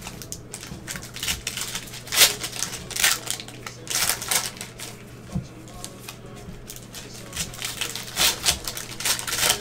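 Plastic wrappers of basketball trading card packs being torn open and crinkled in gloved hands, in short irregular crackling bursts that bunch together about two, three and four seconds in and again near the end.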